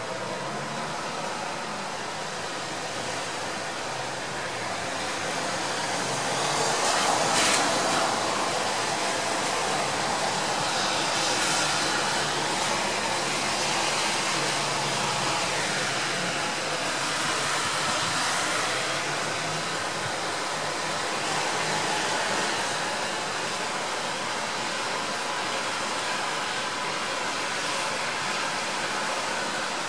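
Steady rain falling, an even hiss that swells a little about seven seconds in.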